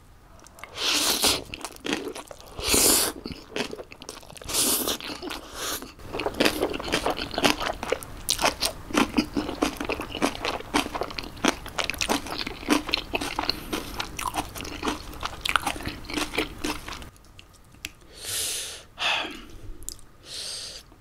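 Close-miked eating sounds of jjapagetti noodles and napa cabbage kimchi. A few loud slurps come in the first six seconds, then dense crunchy chewing of the kimchi for about ten seconds. It quietens near the end with a couple more breathy slurps.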